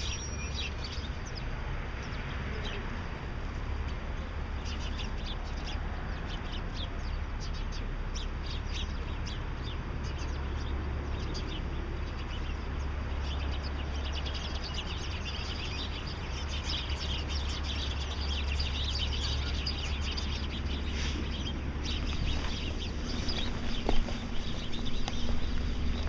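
Many small birds chirping and singing in a busy chorus of short, high chirps, over a steady low rumble, with a few louder bumps near the end.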